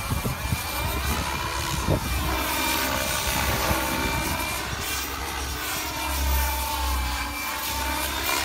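Radio-controlled helicopter powered by a KingTech K-45 small gas turbine, flying aerobatics: a steady turbine whine with rotor noise that rises and falls in pitch as the helicopter swings and moves about.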